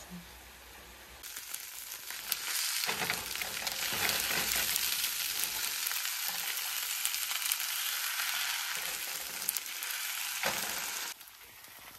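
Kimchi fried rice with shrimp sizzling in a nonstick frying pan as it is stirred, with the spoon clicking and scraping now and then. The sizzle comes in about a second in and cuts off suddenly near the end.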